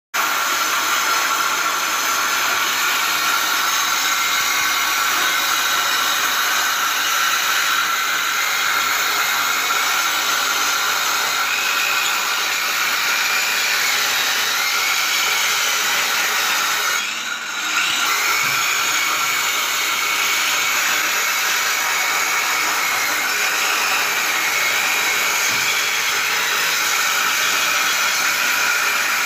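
Handheld angle grinder cutting a groove into a brick wall: a steady motor whine over the gritty noise of the disc in the brick. The sound dips briefly a little past halfway, then carries on.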